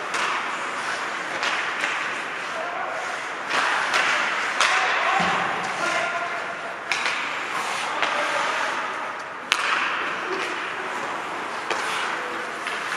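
Ice hockey play in an indoor rink: skate blades scraping the ice under repeated sharp clacks of sticks on the puck and the puck striking the boards, the sharpest crack about nine and a half seconds in. Players' voices call out now and then.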